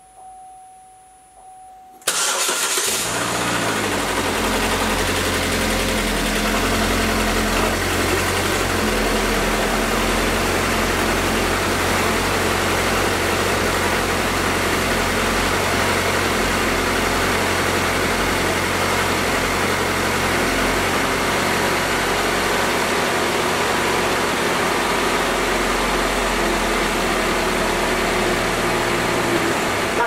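GMC Terrain's 2.4-litre Ecotec four-cylinder engine starting suddenly about two seconds in and then idling steadily, on its first start after the timing chain and balance-shaft chain were replaced.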